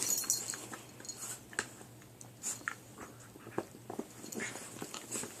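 Dachshund puppies gnawing on a chew, making scattered small clicks and crunches.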